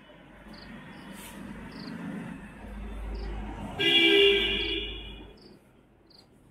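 Crickets chirping in short, evenly spaced calls. A low rumble builds through the middle, and a loud, flat, held tone lasting about a second sounds about four seconds in.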